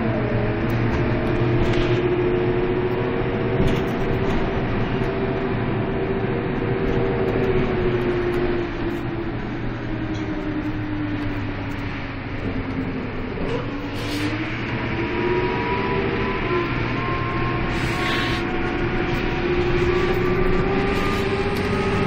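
A Karosa B931 city bus heard from inside the passenger cabin while under way: the diesel engine and drivetrain run with a steady whine. The whine sinks in pitch around the middle as the bus slows, then climbs again as it picks up speed.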